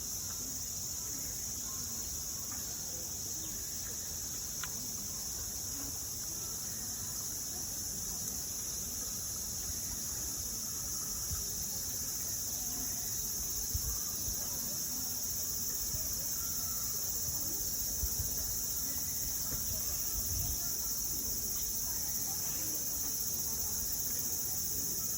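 Steady, high-pitched chorus of insects, a continuous shrill drone that does not let up.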